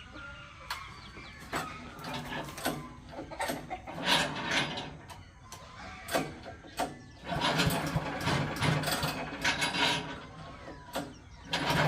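The multipurpose shredder's engine is being started: clicks and knocks, two short spells where it briefly fires, then it catches near the end and settles into steady running, left to idle so its parts lubricate before shredding.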